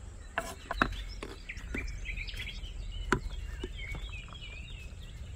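Small birds chirping and twittering over a low steady rumble, with several sharp wooden knocks and clicks of kitchen utensils scattered through.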